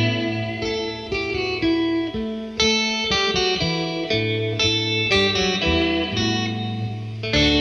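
Instrumental background music led by plucked guitar, a run of changing notes in a steady rhythm.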